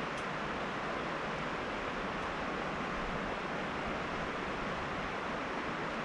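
River water flowing, a steady even rush without breaks.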